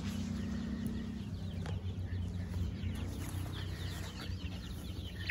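A flock of young chickens peeping and clucking: many short, high peeps overlapping one another.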